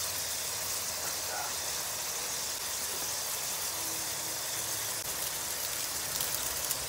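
Eggs and sliced vegetables cooking in liquid in a wok, giving a steady sizzling hiss, with crackling picking up near the end.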